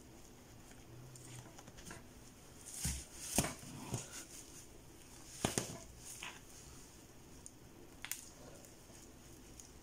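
Handling noise from sewing a curly hair bundle onto a wig cap by hand: soft rustling of hair and thread, with a few sharp clicks and bumps about three to four seconds in, again around five and a half seconds and near the end.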